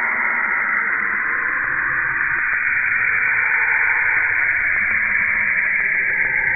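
Saturn's radio emissions, the auroral radio waves monitored by the Cassini spacecraft, converted into sound: a steady, dense hiss sitting high in pitch, with fainter wavering tones drifting slowly beneath it.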